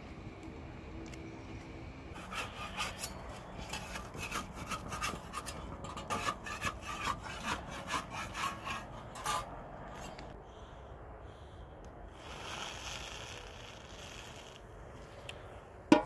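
Rhythmic scraping and rubbing strokes, about two a second, from hands and a wooden stick working dough and flatbread against metal. Later comes a short hiss, then one sharp knock at the very end.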